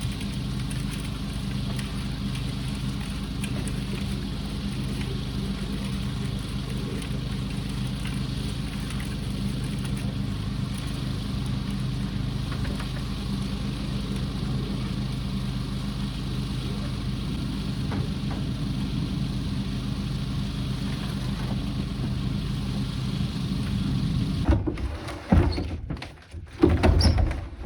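An engine running steadily with a low, even hum. It stops about three seconds before the end, giving way to a few brief, louder, irregular sounds.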